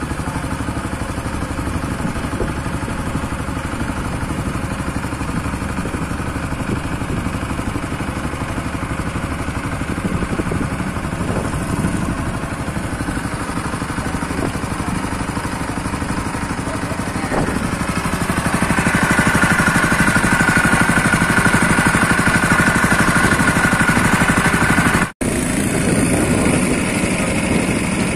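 Long-tail boat engine running steadily under way. About two-thirds through it gets louder with a stronger high note, then breaks off for an instant near the end and runs on.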